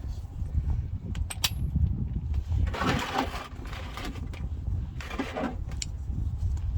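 A socket wrench working the front differential's 24 mm filler plug loose: a few sharp metal clicks about a second in, then two spells of scraping and grinding, over a steady low rumble.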